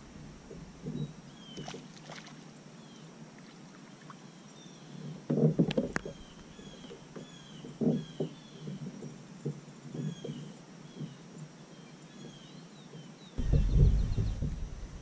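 Knocks and bumps of fishing tackle and the plastic paddle-boat hull while a hooked bass is played, with a splash as the bass leaps about eight seconds in. A bird chirps over and over in the background, and a loud low rumble starts near the end.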